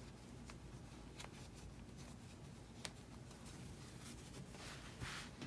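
Faint rustling of crocheted acrylic yarn handled by hands as a button is worked through its buttonhole, with a few soft ticks and a short rustle near the end.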